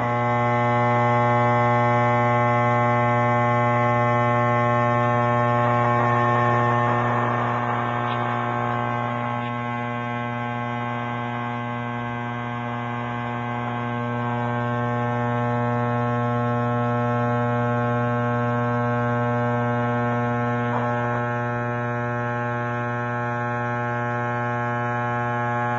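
10-inch Optimus Pro Series subwoofer driven with a steady low test tone, buzzing harshly with heavy distortion as it is run towards burning out. A rough, rasping noise rises over the tone about six seconds in and fades by about ten seconds.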